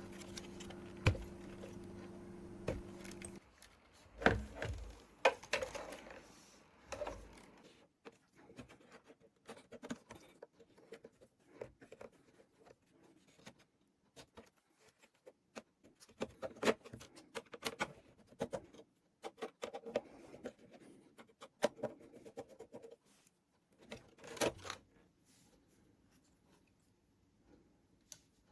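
Scattered small clicks, taps and scrapes of hands working inside an opened MIDI keyboard, unplugging wire connectors from its circuit board and handling the plastic parts. A steady low hum stops about three and a half seconds in.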